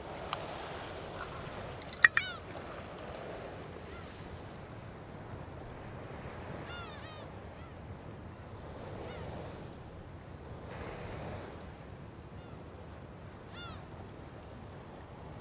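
Steady wash of sea waves and wind at the shoreline. A sharp click about two seconds in as the pull-tab of a small drink can is opened, and a few short bird calls later on.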